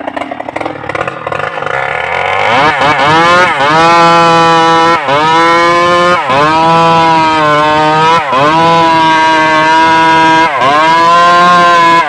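Stihl MS381 two-stroke chainsaw revving up from a lower, uneven speed to full throttle about two to three seconds in, then running flat out, its pitch dipping sharply and recovering about five times.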